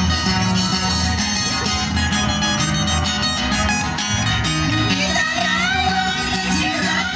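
Pumpin music played on guitars, plucked and strummed over a steady, repeating bass-note rhythm; a high voice starts singing about five seconds in.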